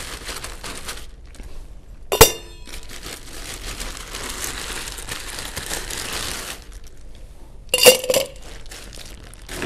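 Rustling and crinkling as ice is dug out for the drink, with one sharp ringing clink about two seconds in. Near the end, ice cubes clink into a stainless steel cocktail shaker.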